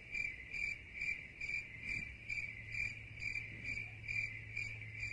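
Cricket-like chirping: an even, high-pitched chirp repeating about three times a second without pause, over a faint low hum.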